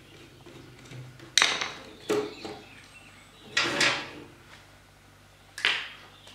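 Handling noise from a contactor and its wires being worked at a plastic switch box on a metal machine body: four sharp plastic-and-metal knocks and clicks, the first the loudest, about a second in, over a faint low hum.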